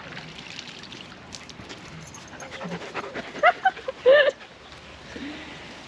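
A wolfdog panting close by, giving a cluster of short, high-pitched, wavering whimpers about three and a half to four seconds in.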